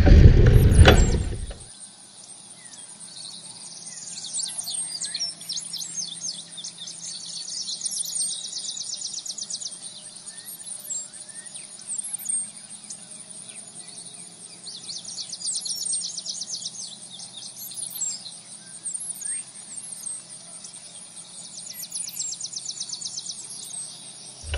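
A loud rumble cuts off sharply under two seconds in, leaving songbirds singing: repeated fast high trills several seconds long and scattered short chirps.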